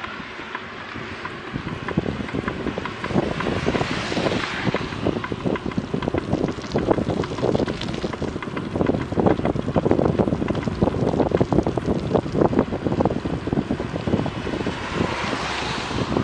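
Wind buffeting a bicycle-mounted action camera's microphone on a ride along a wet road, a dense crackling rush that gets louder as the bike picks up speed in the first few seconds. Two brief swells of hiss come about four seconds in and near the end.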